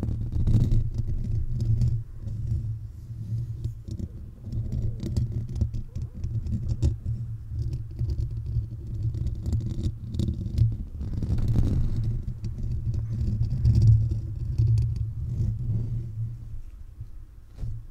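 Fingertips and nails scratching and rubbing directly on the metal mesh grille of a Blue Yeti condenser microphone, heard as a dense, close low rumble with small scrapes and clicks. It eases off near the end as the hands lift away.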